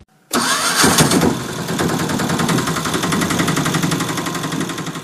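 Small battery toy motor driving plastic gears, a fast, even rattle that starts suddenly just after the start and fades near the end.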